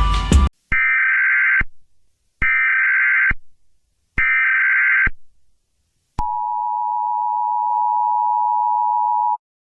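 Emergency Alert System alert signal: three one-second bursts of the SAME digital data header, evenly spaced, followed about a second later by the steady two-tone attention signal, which lasts about three seconds and cuts off. The tail of music sounds briefly at the very start.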